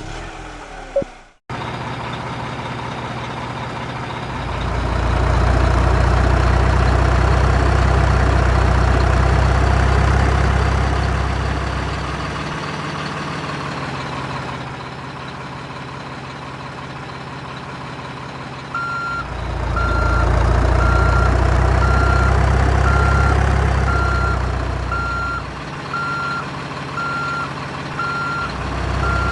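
Heavy diesel construction vehicle working, its engine running and swelling louder twice as it works under load. From about two-thirds of the way in, a reversing alarm beeps steadily about once a second.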